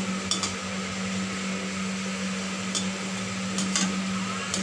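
Shredded potato deep-frying in hot oil in an iron kadhai, a steady sizzle, with a perforated metal skimmer clinking and scraping against the pan several times. A steady low hum runs underneath.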